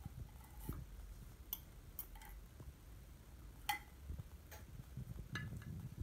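Quiet handling noise: scattered light clicks and taps, about seven in six seconds, the sharpest a little past the middle, over a faint low rumble.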